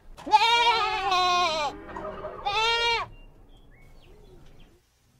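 A goat bleating twice: one long, wavering bleat, then a shorter one about a second later.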